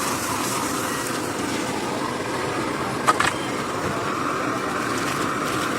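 Steady rushing noise of a busy roadside, passing traffic, with one sharp click about three seconds in.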